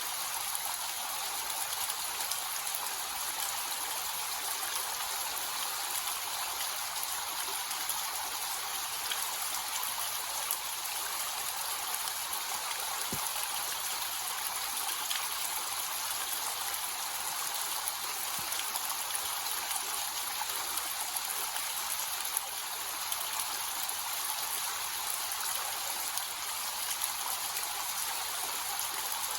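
Small waterfall with a low, gentle flow: a steady hiss of falling and splashing water, mostly high in pitch, with little deep rumble.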